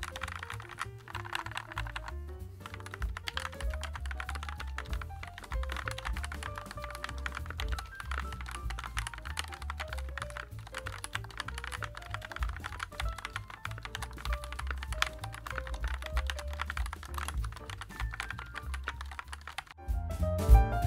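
Fast, continuous typing on a JAMESDONKEY RS6 mechanical keyboard with Gateron G Pro switches and double-shot PBT keycaps: a dense stream of keystroke clacks, over background music. The typing stops near the end.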